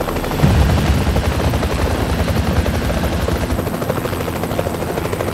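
Helicopter rotor and turbine noise heard from inside the open-door cabin: a fast, steady blade chop, with a heavier low rumble that swells about half a second in and eases after about three and a half seconds.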